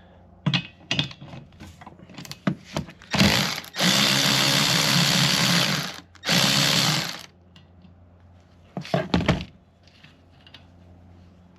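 Handheld power tool running in two bursts, about two and a half seconds and then about a second, while removing a fastener on the second wiper arm. The tool runs between lighter clicks and knocks of tool handling before it and a few sharp knocks after.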